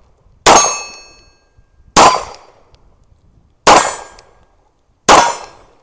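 Four shots from a 9mm 1911-style pistol, about a second and a half apart, each followed by the clang of a hit steel target. The first hit rings on longest, with clear ringing tones.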